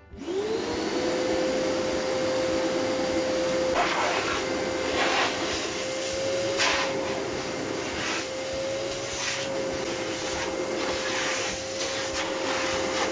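Vacuum cleaner switched on, its motor spinning up within the first second to a steady whine over rushing air. It keeps running as the hose nozzle is drawn over the worktop, with several brief louder hisses of suction as it is moved.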